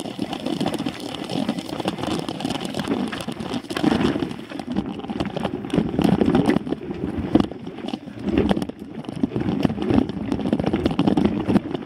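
Rumbling wind and ride noise on an action camera mounted on a mountain bike moving over dirt singletrack, with the bike rattling and knocking over bumps.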